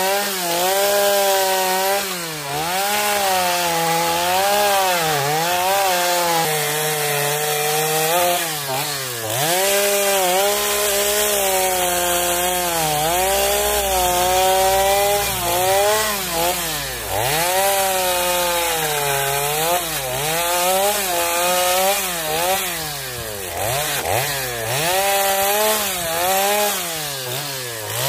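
Chainsaw running and cutting into wood. Its pitch drops again and again as the chain bites into the cut and bogs, then climbs back as it frees up.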